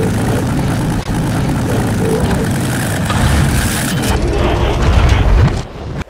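Layered film sound effects of a heavy truck engine mixed with Optimus Prime's mechanical transformation noises, loud and continuous, with a rising sweep near the end before the sound drops away sharply.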